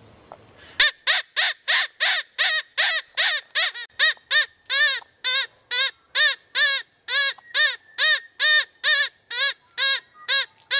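Rabbit distress squealing: a rapid series of identical rising-and-falling squeals, about three a second, starting abruptly about a second in.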